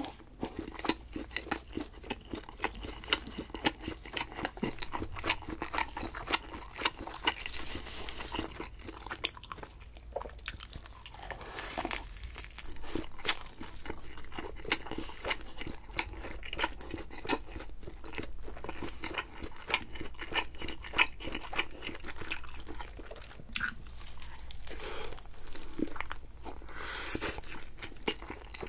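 A person chewing and biting thin-crust pizza, with a steady run of crisp crunches and chewing clicks.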